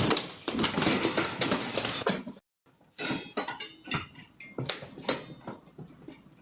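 Clattering and knocking: a dense rattle for about two seconds, then, after a brief break, a run of separate sharp knocks and clicks.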